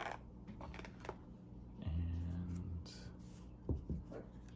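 A tarot card deck being lifted out of its cardboard box tray by a ribbon pull and handled: light rustling with a few small clicks and taps of cards and cardboard.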